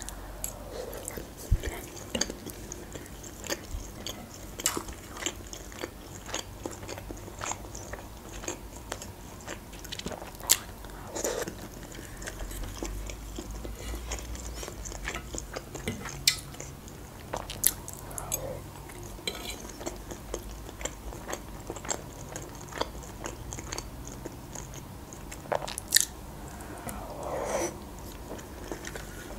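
Close-up chewing and biting of a mouthful of beshbarmak, boiled flat noodles and meat, with sharp clicks now and then.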